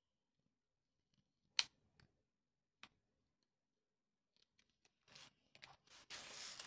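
Faint cutting of thick paper with a craft knife, mostly very quiet, with one sharp click about a second and a half in and a smaller one about a second later. Near the end, the paper rustles and scrapes as the book is shifted.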